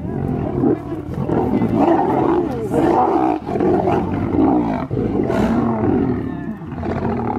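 A pride of lions growling loudly and continuously over a zebra carcass as they feed, several animals' growls overlapping; the sound of lions squabbling over a kill.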